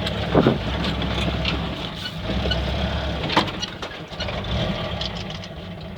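LuAZ-969A's air-cooled V4 engine running at low revs as the vehicle pulls to a stop, with a few knocks and clicks, the loudest about three and a half seconds in. The engine sound eases off near the end.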